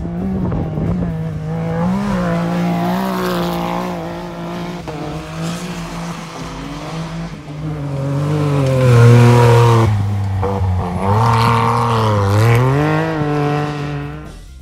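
Engines of sport side-by-side off-road buggies revving hard as they launch and race across sand. The engine note wavers, then drops and climbs again twice in the second half, where it is loudest.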